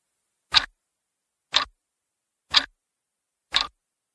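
Clock ticking sound effect, four evenly spaced ticks about a second apart, marking the passing of time.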